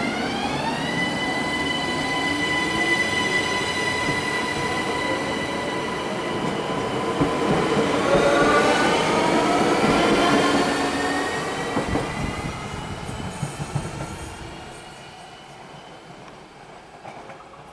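ÖBB Cityjet (Siemens Desiro ML) electric multiple unit pulling out of the station. Its traction drive whines in a stack of tones that rise and hold, then rise again as it gathers speed. It fades as the train draws away, about fourteen seconds in.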